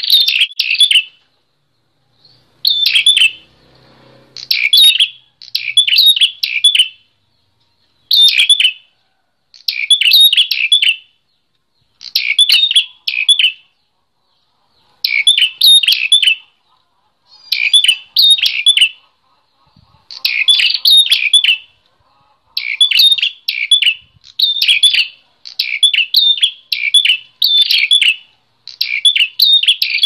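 Caged prenjak klawu (a prinia) in vigorous song: bursts of rapid, high chirping notes about a second long, repeated every two seconds or so with short silences between them and one longer pause about halfway through.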